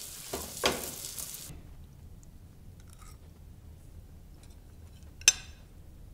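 Food sizzling in a frying pan with a couple of knocks from a utensil against the pan, cutting off abruptly about a second and a half in. Near the end, one sharp clink of a fork against a plate.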